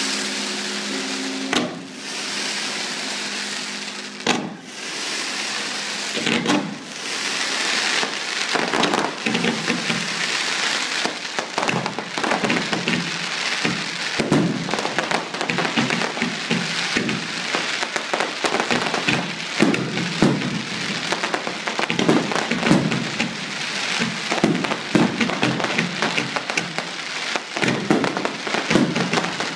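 Fireworks going off: a few separate bangs at first, then from about six seconds in a dense, continuous barrage of cracks and bangs over a hissing crackle.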